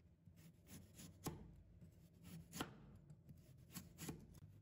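Chinese cleaver slicing a carrot into thin slices on a wooden cutting board: faint, separate knocks of the blade meeting the board, about a dozen at an uneven pace.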